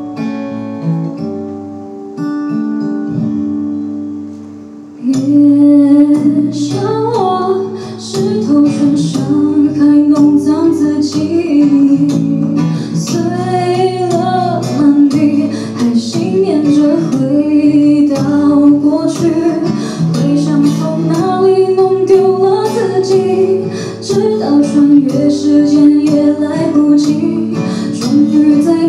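An acoustic guitar plays alone at first. About five seconds in, a woman begins singing a Mandarin pop ballad over strummed acoustic guitar.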